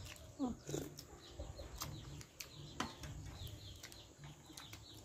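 Faint birds chirping in the background, with a few sharp small clicks and mouth sounds from people eating with spoons.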